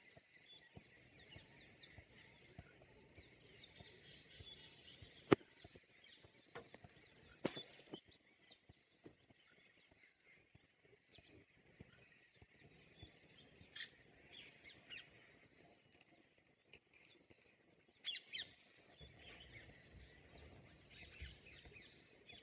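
Faint forest birdsong: scattered short chirps and calls over a steady high-pitched background, with two sharp clicks, about five and seven and a half seconds in.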